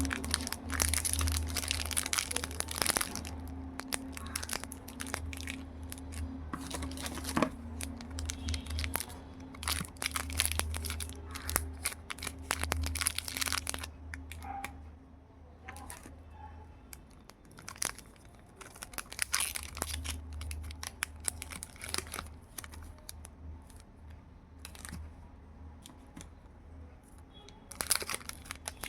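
Candy and chocolate wrappers crinkling and tearing as they are opened by hand. The crackling is dense for the first half, sparse and quieter in the middle, and picks up again near the end, over a low steady hum.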